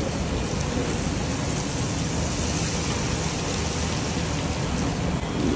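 Cornflake-coated momos deep-frying in a large kadhai of hot oil: a steady, loud sizzle of the oil bubbling hard around the batch.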